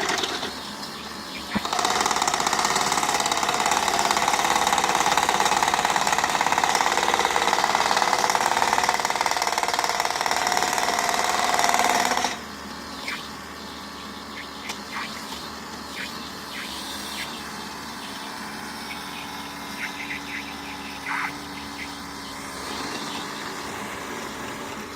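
Excavator-mounted hydraulic post pounder hammering rapidly and continuously for about ten seconds, then stopping suddenly. After it stops, the excavator's engine runs steadily with a few light clicks.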